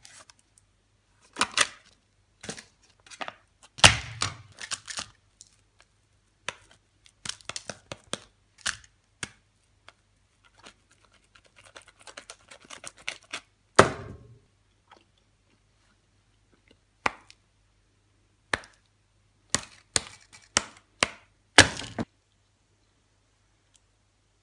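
Food-handling sounds at a kitchen counter: a bread knife and sliced bread handled on a paper bag, then a knife spreading soft cheese on a slice of bread, heard as scattered short knocks, clicks and scrapes that stop a couple of seconds before the end.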